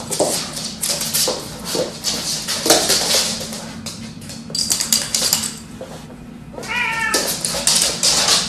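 A dog and a cat scuffling and chasing on a wooden floor: paws and claws knock and skitter in quick irregular clicks, and the cat gives one short, wavering meow about seven seconds in.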